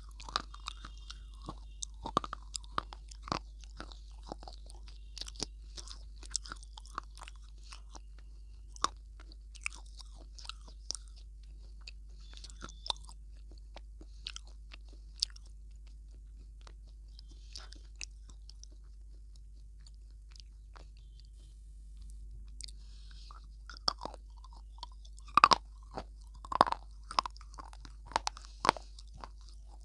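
Close-miked ASMR biting and chewing of a hard, dry pink block, with sharp crunchy snaps scattered throughout. The snaps thin out through the middle and the loudest crunches come bunched together near the end.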